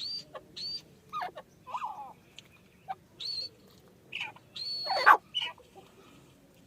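Francolin (teetar) calling: short high calls in quick succession at the start, then assorted lower chirps and squawks, with a longer high call and the loudest squawk about five seconds in.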